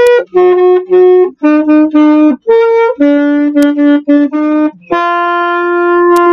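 Alto saxophone playing a slow line of about ten short, separately tongued notes that step up and down in pitch, ending on a long held note near the end.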